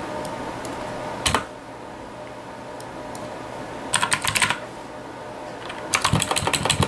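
Computer keyboard being typed on: a brief keystroke about a second in, a short run of keys around four seconds, then a faster run of typing near the end.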